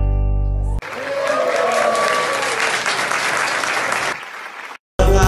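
Music ends on a held final chord, then the audience applauds, with a voice calling out over the clapping. The applause fades and breaks off, and upbeat hula-style music starts again just before the end.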